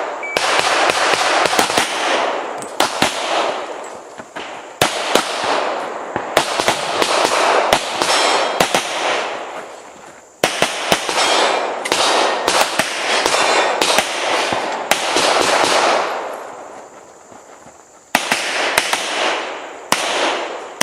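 Rock Island Armory Pro Ultra Match pistol in .40 S&W firing strings of rapid shots, each ringing out with a long echo. The strings break off briefly about ten seconds in and again for about two seconds near the end, then pick up again.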